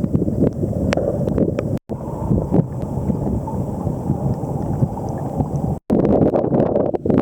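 Wind buffeting an action camera's microphone with water rushing and splashing under a kiteboard, a rough steady rumble with crackles, cut off abruptly twice by edits about two and six seconds in.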